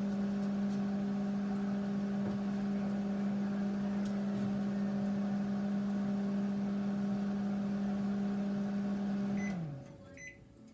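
Panasonic microwave oven running with a steady hum while it heats food. Near the end the hum falls in pitch and stops as the cycle finishes.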